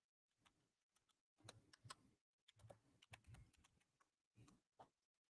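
Faint typing on a computer keyboard: irregular clusters of keystroke clicks with short pauses between them.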